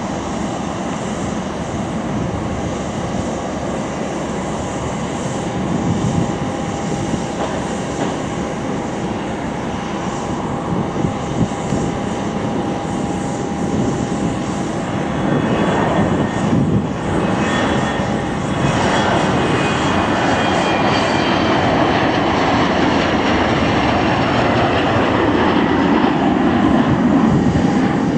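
Embraer ERJ-145 regional jet's twin rear-mounted Rolls-Royce AE3007 turbofans, spooling up to takeoff power for the takeoff roll and climb-out. A steady high whine runs throughout, and the engine noise grows louder about halfway through and again a few seconds later as the jet accelerates and lifts off.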